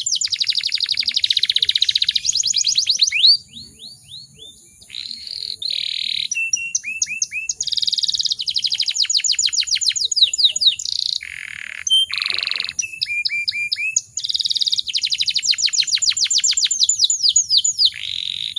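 Canary singing a long song of fast trills, each phrase a quick run of repeated falling notes, changing from one phrase to the next with only a brief pause about four seconds in.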